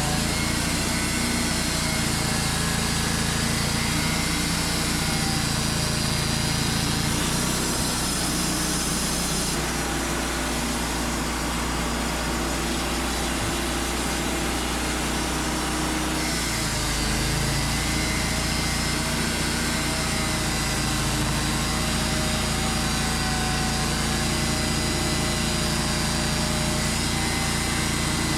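Wood-Mizer LT35 sawmill's engine running steadily, its sound changing for a stretch from about 7 to 17 seconds in.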